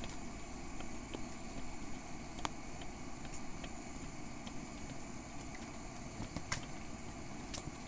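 Steady low background hum with a few faint clicks and ticks scattered through it.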